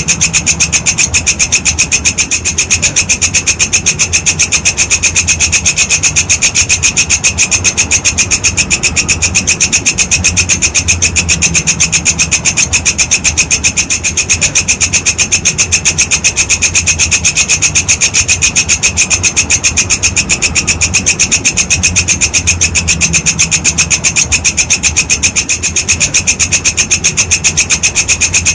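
Walang kecek, a singing grasshopper, calling without a break in a rapid, even train of high rasping pulses. A low hum swells and fades underneath.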